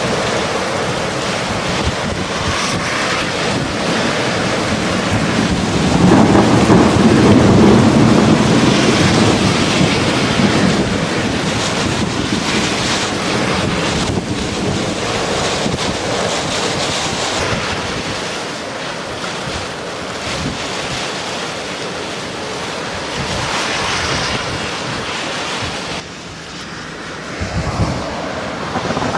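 Storm wind in a winter thunderstorm blowing hard across the microphone, a continuous rushing buffeting that swells louder and deeper about six seconds in. Near the end the sound drops suddenly, then picks up again.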